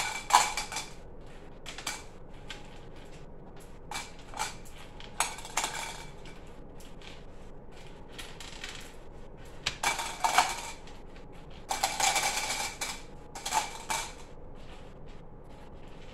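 Skittles candies dropping and rattling into clear cups on a table, in irregular bursts of clicks with quiet gaps between, the busiest stretch about two-thirds of the way through.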